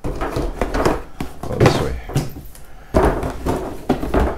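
Large cardboard shoe box and its lid being handled and moved around: cardboard scraping and rubbing, with several dull knocks.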